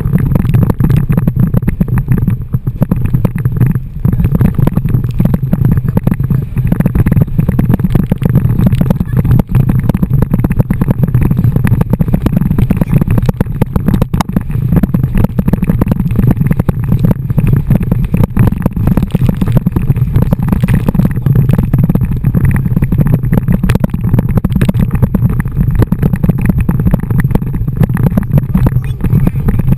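Wind and water rushing past an action camera riding on a towed inflatable tube: a loud, steady, low rumble of wind buffeting the microphone, with constant small splashes and knocks.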